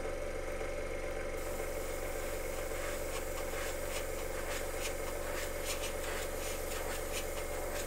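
Airbrush compressor running with a steady hum, while the airbrush sprays paint with a hiss in short spurts, starting about a second and a half in.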